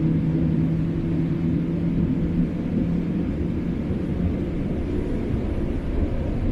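Cabin noise of a Boeing 787-8 taxiing, heard from inside the cabin: a steady low rumble with a low engine hum that fades about halfway through.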